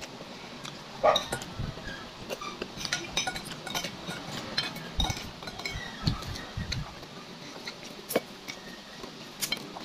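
Metal spoon clinking and scraping against a bowl during a meal of rice and dried fish, in scattered light clicks, with a few dull knocks on the table about five and six seconds in.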